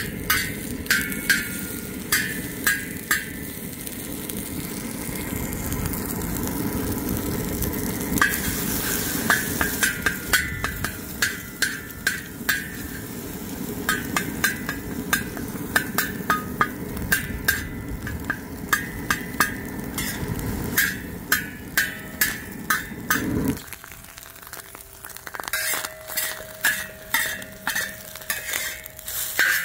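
Eggs sizzling on a hot, freshly seasoned carbon-steel discada while a metal spatula scrapes and taps across the steel again and again, over the steady roar of a propane crawfish burner. The burner roar drops away about 23 seconds in, leaving the scraping and sizzle.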